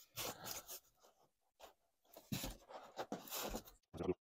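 N scale model railway track being pried up and pulled off the layout board by hand: short scratchy scraping and rustling in two bursts, with a few small clicks near the end.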